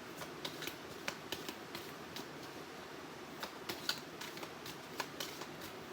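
A small deck of oracle cards being shuffled by hand: a run of light, irregular clicks and flicks of card against card.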